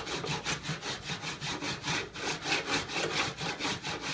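Rapid, rhythmic back-and-forth scraping of a hand tool shaving a re-sawn wooden board flat, about six strokes a second.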